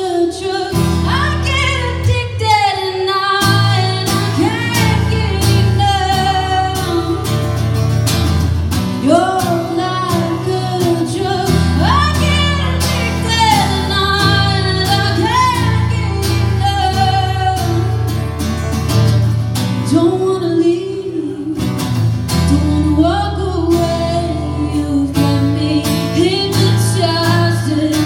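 A woman singing a song live over two acoustic guitars, strummed in a steady rhythm.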